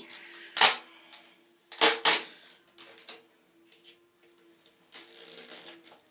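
A few sharp clicks and knocks of plastic containers being handled as cockroaches are tipped into their tub. The loudest come just after the start and around two seconds in, with a brief rustle about five seconds in, over a faint steady hum.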